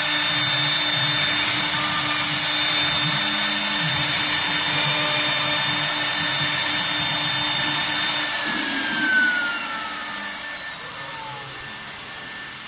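CNC router with an HSD spindle running with a steady high whine over a rushing mechanical noise. About eight seconds in, the whine falls steadily in pitch and the sound gets quieter, as the spindle slows down.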